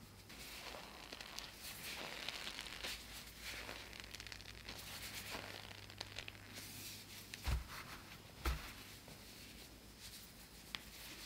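Dragon's beard candy being pulled and folded by hand in cornstarch: a soft, continuous crinkling and rustling of the fine sugar strands and the powder, with two dull thumps about a second apart a little past the middle.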